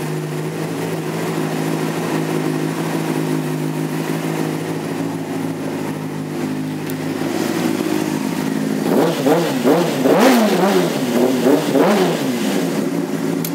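Honda CBR600RR inline-four sport-bike engine with an aftermarket Yoshimura exhaust, idling steadily, then blipped several times with the throttle in the last few seconds, pitch rising and falling with each rev.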